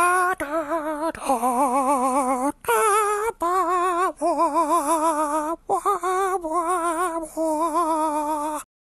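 Intro theme: a wordless vocal melody, hummed or sung in held notes with vibrato, in short phrases. It cuts off suddenly near the end.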